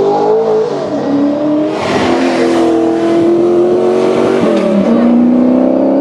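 Historic racing car engine pulling hard up the road, its pitch climbing and dropping at upshifts about a second in and again near five seconds.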